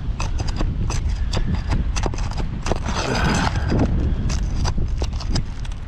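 Irregular clicks, knocks and crackling of an old, brittle asphalt shingle being pried up to reach a nail, the shingle tearing as it is lifted, with a longer scrape about three seconds in. A steady low rumble runs underneath.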